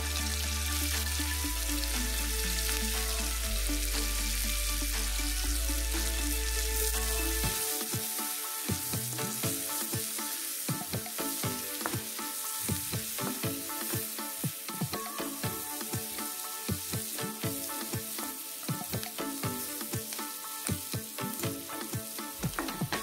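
Sliced onions sizzling in hot oil in a black pan, with a steady frying hiss. From about a third of the way in, a wooden spatula stirs them, making many quick scrapes and taps against the pan. Background music plays over the first several seconds.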